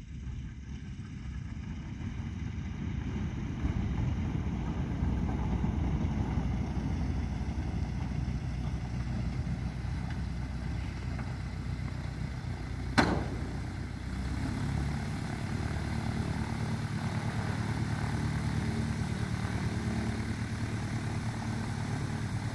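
A touring motor glider's piston engine running at low power as the aircraft rolls out on a grass strip after landing and taxis close, growing louder over the first few seconds and then holding steady. There is one sharp click about halfway through.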